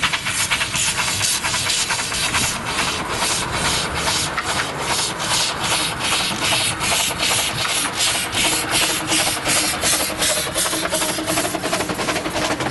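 Miniature steam locomotive running, its exhaust chuffing in an even beat of about three chuffs a second.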